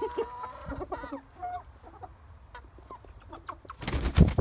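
Chickens clucking, with a few pitched calls in the first second and a half and scattered short taps. Near the end comes a loud, low, noisy rumble-and-knock, the loudest sound here.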